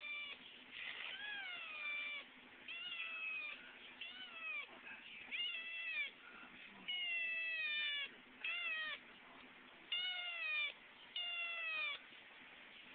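Kitten meowing again and again: about nine high calls in quick succession, some over a second long, each falling in pitch at its end. It has just been fed, and the owner takes the calling for a craving for contact.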